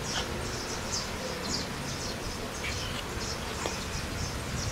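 Kitchen knife cutting fried tofu on a wooden chopping board, a couple of faint taps against the board, over a steady background hiss with quick, high-pitched chirps repeating several times a second.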